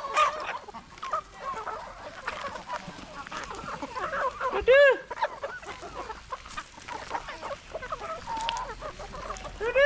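A flock of free-range native hens clucking, with two loud, arched squawks: one about halfway through and one at the end.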